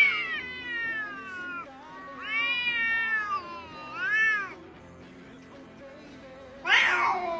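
Domestic cats yowling in a standoff: a long falling yowl, then a longer rising-and-falling one and a short one about four seconds in. Near the end another cat lets out a loud cry.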